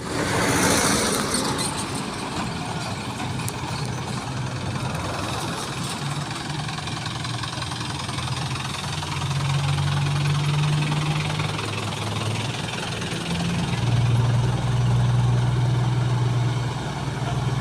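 Large excavator's diesel engine running as the machine travels, a deep drone that swells around the middle and again near the end.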